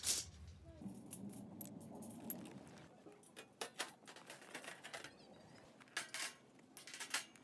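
Stainless steel fire-pit parts clinking and tapping as they are assembled: the flat top plate set down onto its posts and metal washers fitted over the post ends. A string of light metallic clicks, the loudest right at the start.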